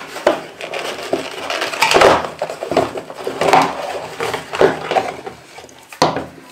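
Cardboard box handling: irregular rustling and scraping of the packaging as a hair straightener and its pouch are lifted out, with several light knocks on the wooden table, the loudest about 2 seconds in.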